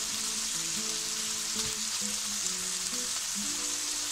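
Marinated boneless chicken thigh pieces sizzling steadily as they fry in oil in a pan on a low flame, the moisture from the chicken cooking out as it browns. Soft background music plays underneath.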